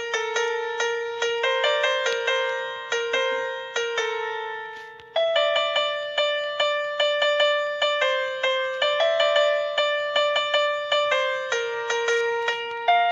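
Instrumental ringtone: a keyboard melody of quick notes that each strike and fade. The sound dies away briefly about five seconds in before the tune starts again.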